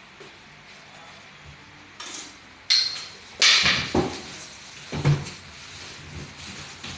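Several sudden clattering knocks of hard objects being handled, starting about two seconds in, the loudest near the middle.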